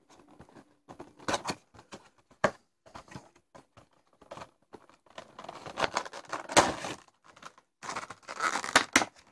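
Handling noise from opening a small Funko Pocket Pop keychain package by hand: scattered clicks, taps and rustles of cardboard and plastic, loudest about six and a half seconds in and again near the end.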